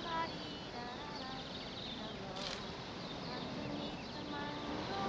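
Film soundtrack of a tropical outdoor scene: insects buzzing steadily with short, repeated bird-like chirps over it.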